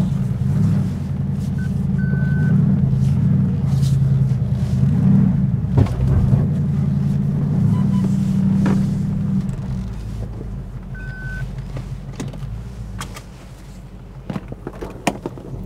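BMW X5's engine pulling at low speed as the SUV crawls up a rocky off-road climb, its exhaust running through a muffler delete, with scattered crunches and clicks from rocks under the tyres. The engine sound eases off and gets quieter after about nine seconds.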